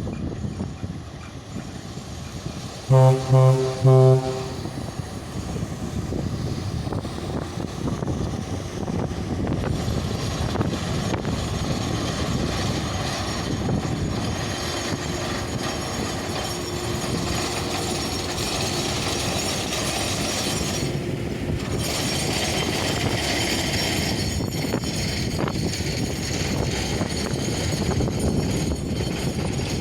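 A VL8m electric locomotive's horn sounds three short blasts about three seconds in, then its freight train rolls past very slowly with a steady rumble and rattle of wheels and wagons.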